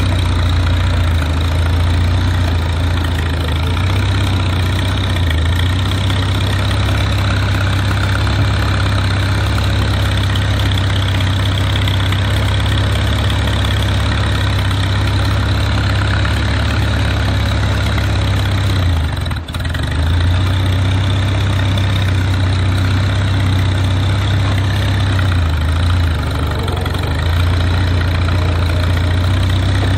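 1949 Farmall Super A's four-cylinder engine running steadily as the tractor is driven slowly, heard from the driver's seat. The engine note drops away for a moment about two-thirds of the way through, then picks up again.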